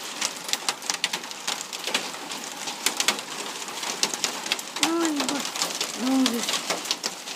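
Hail pelting down, a dense patter of sharp clicks and taps on hard surfaces over a steady hiss. Two short, low voice-like sounds come about five and six seconds in.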